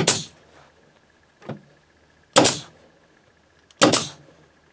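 Pneumatic staple gun firing three times into carpet, each shot a sharp bang with a brief trailing hiss, the last two about a second and a half apart.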